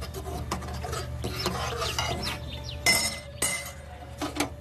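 Spoon and metal vessels clinking and scraping as an ingredient mixture is stirred and handled, with two louder sharp clinks about three seconds in.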